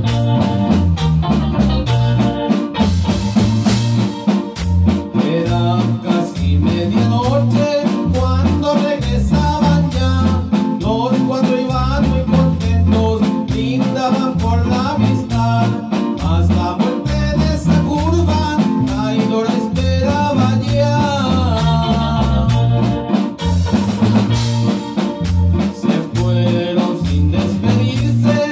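Small band playing live: a drum kit keeping a steady beat under a guitar and a wavering lead melody.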